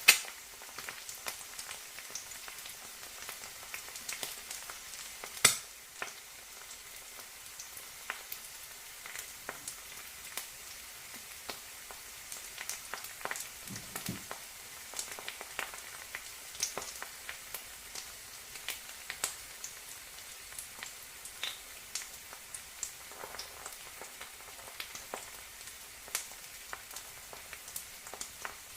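An egg frying: a steady sizzle with frequent small crackles and pops. The two loudest pops come right at the start and about five and a half seconds in.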